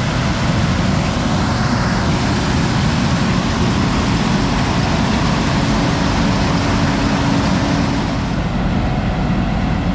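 Heavy farm machinery engine running steadily, a dense low drone with rumble and a wash of mechanical noise.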